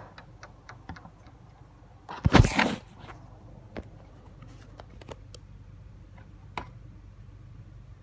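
A Funko Pop box being handled: a loud rustling scrape about two seconds in, then scattered light clicks and taps.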